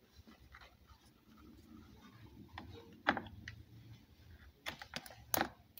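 A few sharp plastic clicks and knocks as a fused three-pin mains plug is handled and pushed into a socket adapter on a power strip. The loudest click comes about three seconds in, with a quick cluster of clicks near the end.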